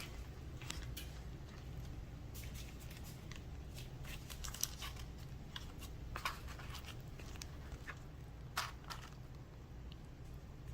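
Hands quietly folding and tucking crescent roll dough over a filling on a baking pan: faint rustles and a few soft clicks over a low steady room hum.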